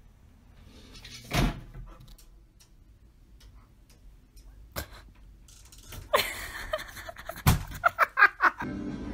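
A loud knock about a second and a half in, as from an object bumped by a cat, then scattered clicks and another sharp thud, with a quick run of short pitched sounds near the end.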